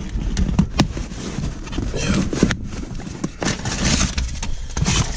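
Turbo kit parts and their packaging being handled: crinkling wrapping and several short clicks and knocks over a low rumble.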